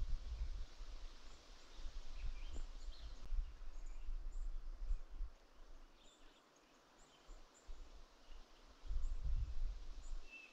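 Wind rumbling on the microphone in gusts. The rumble drops away for a couple of seconds past the middle, then comes back. Faint short chirps of small birds sound throughout.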